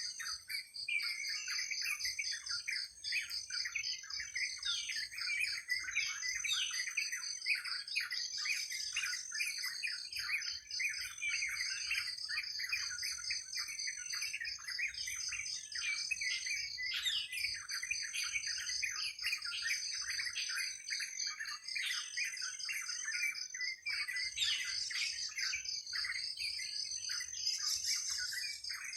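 A dense chorus of many small birds chirping and twittering without a break, over a steady high pulsing trill and a thin high note that comes and goes every second or so.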